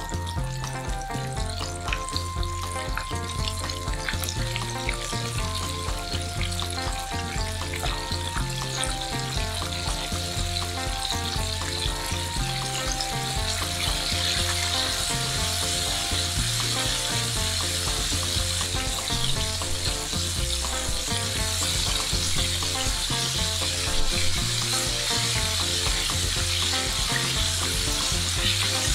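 Flour-dredged chicken pieces deep-frying in hot canola oil in a pan: a steady crackling sizzle of bubbling oil that grows louder about halfway through.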